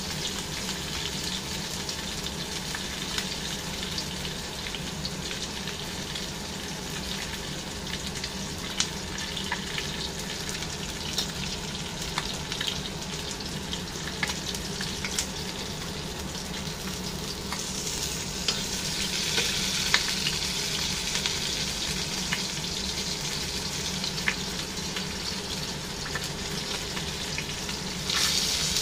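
Whole fish shallow-frying in hot oil in a stainless steel wok: a steady sizzle with scattered clicks and scrapes of a metal spatula against the wok. The sizzle gets louder about two-thirds of the way through and again near the end.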